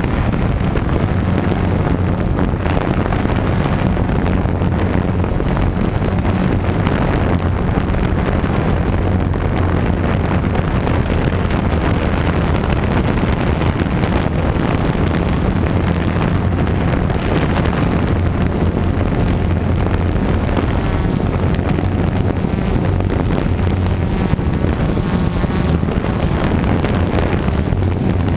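Quadcopter drone's electric motors and propellers running in flight, heard through its onboard camera: a steady low hum under a rush of wind on the microphone from the prop wash.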